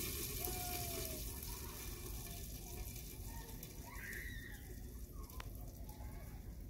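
Hot garlic-and-asafoetida oil tempering (chhaunka) sizzling in a pot of chickpea-leaf saag, the hiss fading as it settles.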